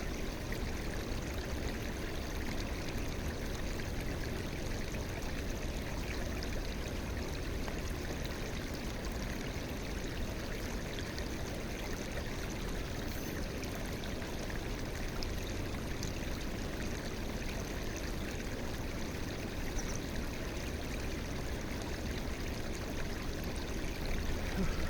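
River water flowing steadily, a constant rushing noise.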